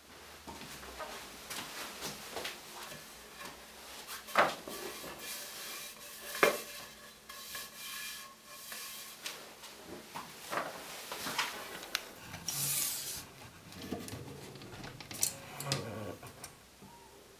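Wood being handled: a length of pine 2x4 knocking against other offcuts as it is pulled from a stack, with two sharp wooden knocks a few seconds in, then scattered knocks and rubbing as it is laid on the bench and measured, with a brief hiss midway.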